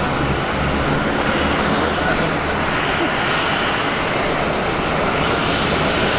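Jet airliner engines running, a steady loud rush of noise with a low rumble underneath.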